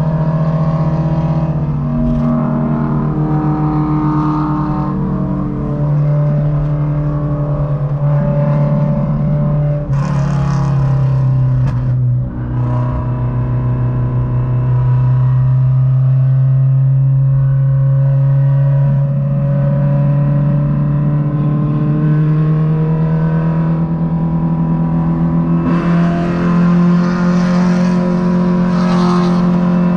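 Honda Civic EK4's naturally aspirated 1.6-litre VTEC four-cylinder, heard from inside the cabin, running hard at highway speed with a steady drone. About halfway through the pitch dips, then climbs slowly and steps up again. There are rushes of wind and road noise about a third of the way in and near the end.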